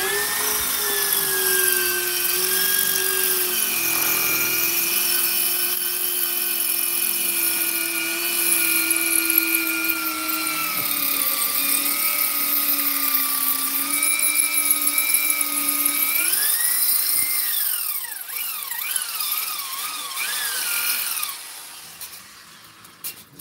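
Electric power tool motor whining while cutting, with a hiss from the cut. Its pitch sags slowly under load. About 16 s in it speeds up, then dips and recovers several times as it bites, and it stops a couple of seconds before the end.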